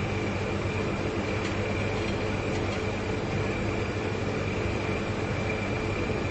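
Two large refrigerators running, their compressors humming steadily, with a thin high whine above the low hum.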